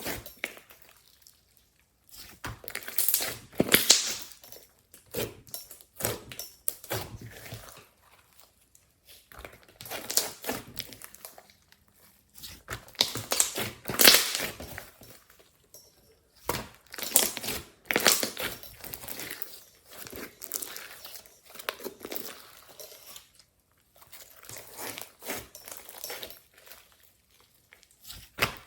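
Hands squishing, stretching and pressing glossy slime mixed with clay and glitter, making sticky crackling and popping in spells of a second or two with short pauses between.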